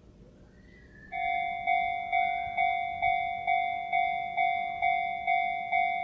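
Japanese level-crossing warning bell starting about a second in and ringing steadily at a little over two strokes a second, the signal that a train is approaching and the crossing is closing.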